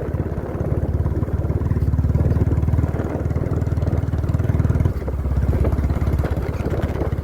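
Motorcycle engine running steadily under way, with a brief drop in level about five seconds in.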